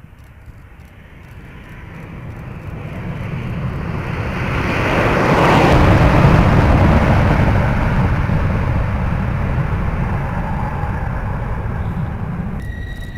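Rockwell B-1B Lancer bomber taking off on afterburner: the jet noise of its four turbofans builds to a peak about five to seven seconds in as it passes, then slowly fades as it climbs away. Near the end a steady high whine suddenly comes in.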